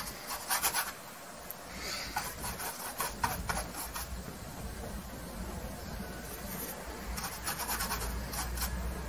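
Bristle paintbrush scrubbing oil paint onto a stretched canvas in short runs of quick back-and-forth strokes. Several runs come in the first few seconds, then a quieter stretch, then a longer run near the end.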